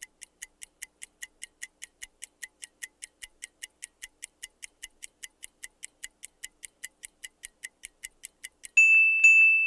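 Countdown-timer clock ticking, sharp even ticks about four a second, ending near the end in a louder steady high tone as the time runs out.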